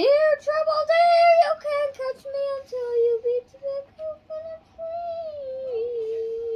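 A young boy singing wordlessly in a high voice. He slides up into a loud note at the start, wanders through shorter notes, and ends on a long held note.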